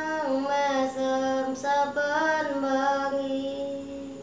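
A boy singing a slow Javanese pop melody solo into a microphone, drawing out long held notes with a few changes of pitch, his voice trailing off near the end.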